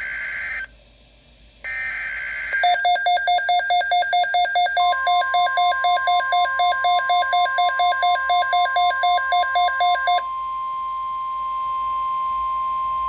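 Emergency Alert System header: two short bursts of SAME data tones, then a buzzy electronic alert tone pulsing about four times a second. A couple of seconds into the pulsing, a steady NOAA Weather Radio warning tone near 1050 Hz joins in, and it carries on alone after the pulsing cuts off.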